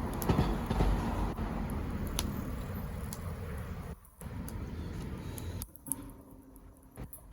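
Wood bonfire burning: scattered sharp crackles and pops over a low rumbling noise. The sound drops away briefly about four seconds in, and again for over a second near the end.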